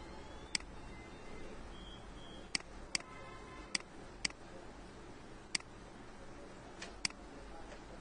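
Computer mouse clicking, about eight short sharp clicks at uneven intervals over a steady low background hiss.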